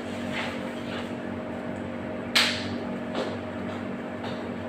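A steady mechanical hum in the room, with faint rustles of a foil burger wrapper being handled and one sharp click a little over two seconds in.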